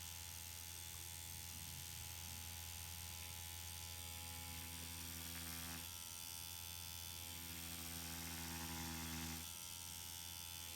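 Permanent makeup machine running with a faint, steady electric buzz over a low hum as hair strokes are drawn on practice latex; its tone changes twice, about six and nine and a half seconds in.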